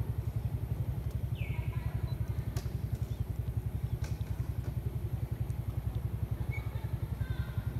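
A small engine running steadily at idle, a low throb pulsing several times a second, with a short high chirp falling in pitch about a second and a half in.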